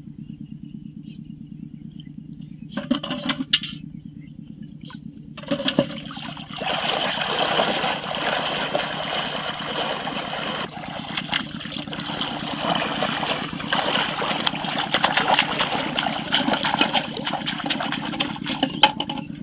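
Water splashing and rushing, loud and continuous from about six seconds in, over a steady low hum.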